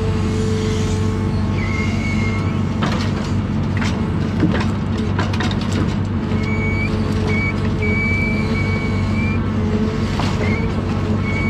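John Deere 1010G forwarder's diesel engine running steadily, with a high whine that comes and goes. Several knocks and clatters sound about three to five seconds in and again near ten seconds.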